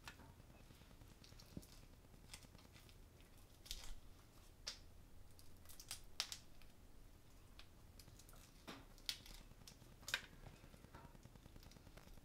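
Faint, scattered soft clicks and wet taps as raw peeled shrimp are set down one at a time in a stainless steel tray, over near-silent room tone.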